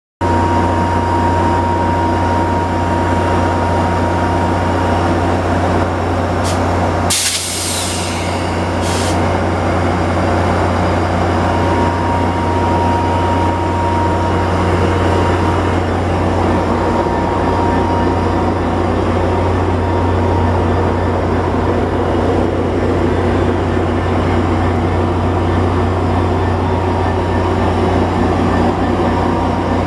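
Metra diesel locomotive engine idling at the platform, a steady low drone with a thin whine over it. About seven seconds in a sharp burst of air hiss, like an air-brake release, cuts in for about a second, with a shorter hiss soon after.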